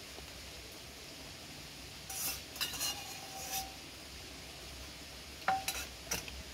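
Cutlery clinking against bowls during a meal: a few short clinks with a brief ring, in small clusters about two, three and a half and five and a half seconds in, over a steady faint hiss.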